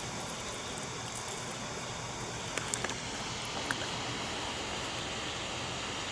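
Steady hiss of outdoor background noise, with a few small clicks between about two and a half and four seconds in.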